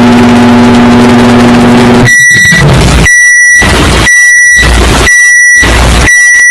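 Microwave oven humming steadily as it runs, cutting off about two seconds in, then its high end-of-cycle beep sounding five times, about once a second.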